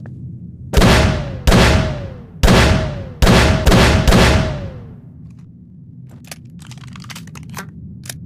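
Six shots from a Smith & Wesson M1917 .45-calibre six-shot revolver, each with a short ringing tail. The first three are about a second apart and the last three come quicker, emptying the cylinder. A run of light metallic clicks follows near the end.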